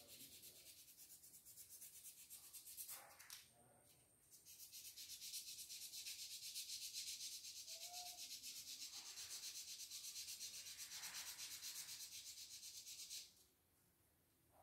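Fast, scratchy rubbing on a part of a CNY embroidery machine under repair. It comes in two runs: about three seconds, a short pause, then about nine seconds that stop abruptly.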